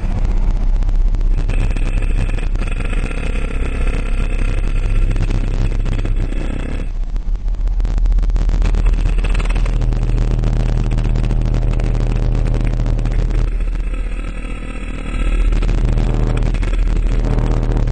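Two Alpine Type-R 12-inch subwoofers in a ported box playing a loud, steady deep bass note, with a harsh buzz over it. The level dips briefly about seven seconds in and again around fifteen seconds.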